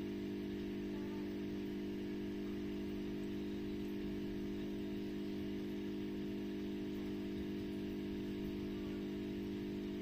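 A steady low electrical hum of several unchanging tones, with a faint rumble beneath it.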